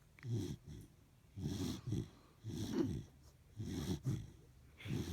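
A sleeping Pembroke-type corgi snoring: rasping snores about once a second, five in a row, each broken into two short rasps.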